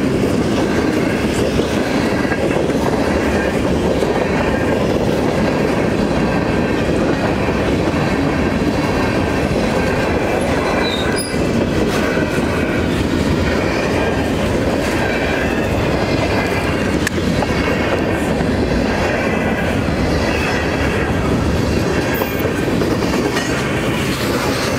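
Freight cars of a fast-moving freight train rolling past a grade crossing: a loud, steady rumble of steel wheels on the rails, with faint high squealing tones over it.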